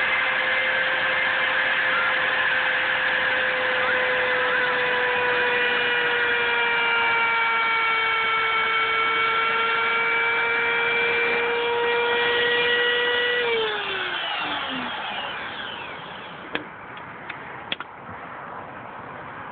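Router motor on a homemade CNC router running with a steady high whine, then switched off about two-thirds of the way through and spinning down, its pitch falling away. A few light clicks follow in the quieter stretch.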